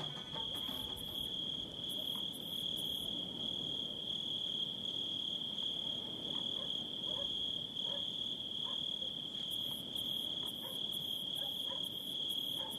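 Crickets trilling: one steady, unbroken high-pitched trill, with a fainter, higher insect call coming in short regular pulses. A few faint short chirps join in the second half.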